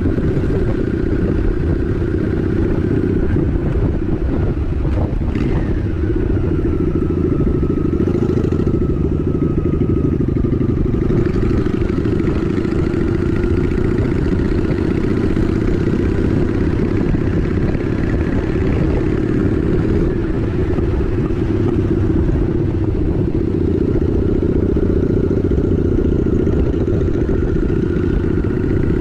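Honda Shadow 750 ACE's V-twin engine running steadily as the motorcycle cruises, heard from the rider's seat as a continuous rumble. A higher whine dips in pitch about five seconds in.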